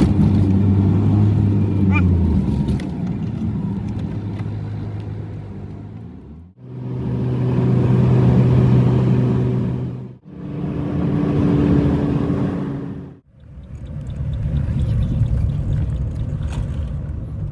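Engine and road noise heard from inside a moving vehicle, a steady low hum, broken into short stretches by three sudden drops to near silence.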